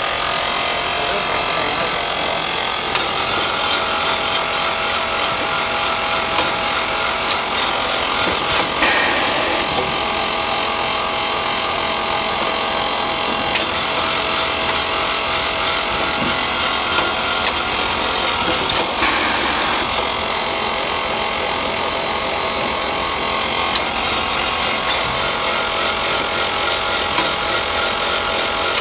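Vacuum coffee-powder packing machine running: a steady mechanical noise with a few constant tones, sharp clicks and knocks from the moving mechanism, and two hisses of about a second each, roughly nine and nineteen seconds in.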